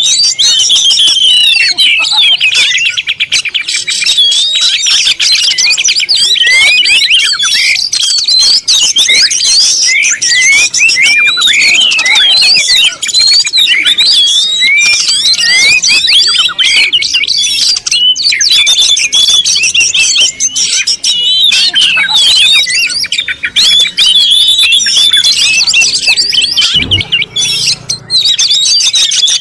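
A flock of birds chirping together in a dense, continuous chorus of quick rising and falling calls.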